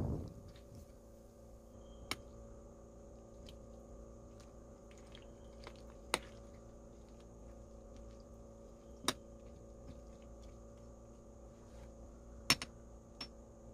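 Stainless ladle pressing chopped onions and chili peppers down into brine in a glass dish: a few sharp, sparse clicks and taps of metal against glass and vegetables, over a faint steady hum.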